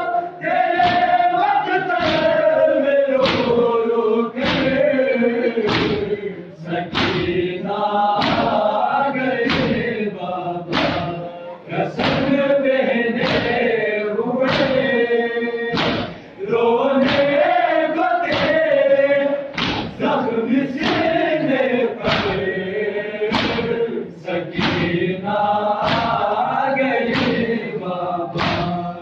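A crowd of men singing a mourning noha in unison while beating their chests in time (matam). The blows land together as sharp, steady thuds a little over once a second.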